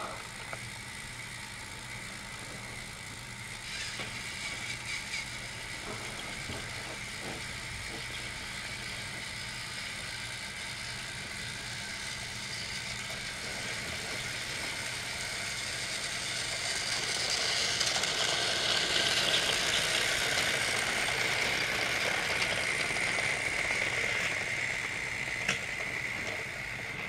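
Battery-powered TrackMaster motorized toy trains running, their small motors and gears giving a steady high whine with a light rattle, growing louder in the second half and cutting off suddenly at the end.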